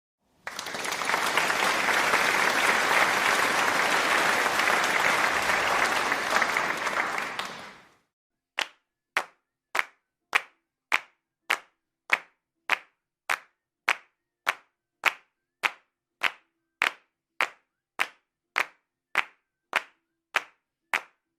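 Audience applause, a dense wash of many hands clapping, for about seven seconds, fading out. After a short gap come single, sharp hand claps, evenly spaced at a little under two a second, running on as a slow steady clap.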